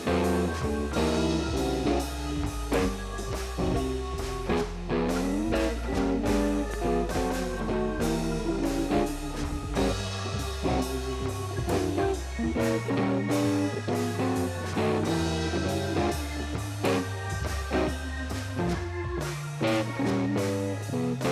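Background music: guitar-led blues-rock instrumental with bass and drums and a steady beat.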